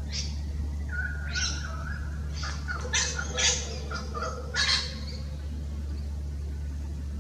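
Australian birds calling: a string of short harsh calls, bunched about three to five seconds in, with a few clearer held notes beneath them.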